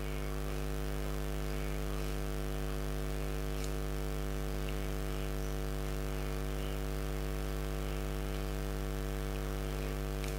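Steady electrical mains hum: a low buzz with a stack of higher overtones, holding an even level with nothing else standing out.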